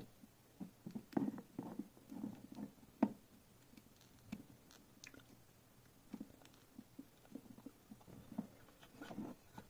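Faint handling noise of small plastic cable connectors and thin wires being worked into a circuit board in a plastic housing: scattered soft clicks and rustles, the sharpest click about three seconds in.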